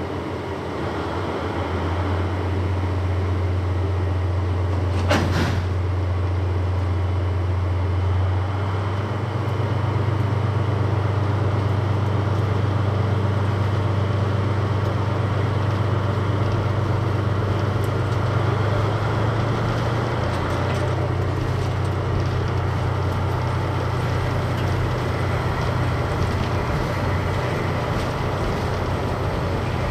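Diesel train engine running loud and steady, its low engine note stepping up about eight seconds in and changing again near twenty seconds, as the throttle is notched. A single sharp knock comes about five seconds in.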